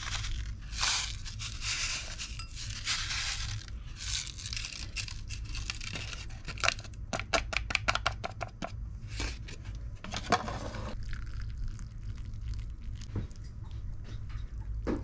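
Ochazuke seasoning sachet crinkling in the hands and being shaken out over bowls of rice. About six and a half seconds in comes a quick run of sharp ticks as it is shaken and tapped, with another rustle a few seconds later.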